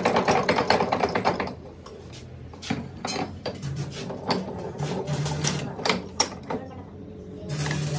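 Metal clicking and knocking from a bench vise being cranked tight by its handle. A fast rattle of clicks lasts about the first second and a half, then scattered single clicks and knocks follow.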